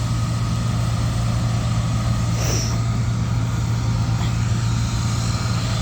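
Combine harvester running steadily while harvesting wheat, a constant low engine hum.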